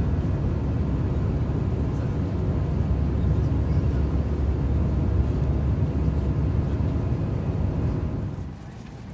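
Airbus A320 cabin noise in flight: a steady, loud low rumble of engines and airflow heard inside the cabin, dropping to a much quieter hum near the end.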